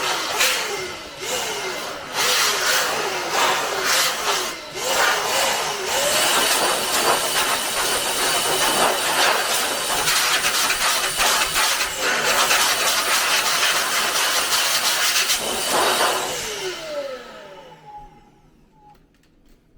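A power blower blows air through a desktop PC's case, first in short blasts and then in one long steady blast that stops near the end. Between blasts, and as it stops, the blown-around computer fan winds down with a short falling whine.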